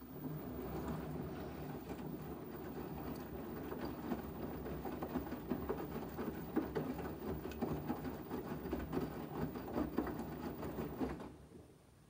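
LG front-loading washing machine in its main wash: the drum turns, tumbling wet laundry through the water with steady sloshing and soft patter. The drum stops about a second before the end, a pause between tumbling turns.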